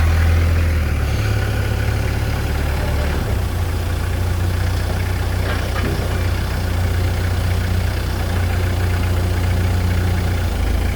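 Heavy vehicle engine idling steadily with a low, even hum, its pitch shifting slightly once or twice.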